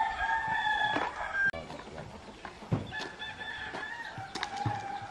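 A rooster crowing twice: one long crow ending about a second and a half in, and a second starting about three seconds in.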